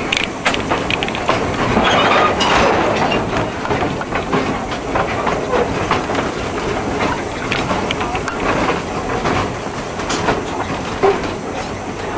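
Narrow-gauge passenger coach rolling along the track, its wheels clicking over rail joints over a steady rumble and rattle, heard close from an open coach window.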